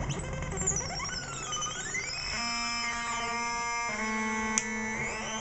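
MFOS Alien Screamer noise box, a small DIY analog synth oscillator, played through an effects unit: swooping pitch glides for about two seconds, then a steady buzzy tone that jumps to a new pitch about four seconds in. A sharp click comes near the end.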